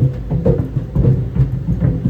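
Tennis balls tumbling in a running clothes dryer, knocking against the drum in an uneven rhythm of a few thumps a second over the dryer's steady low rumble.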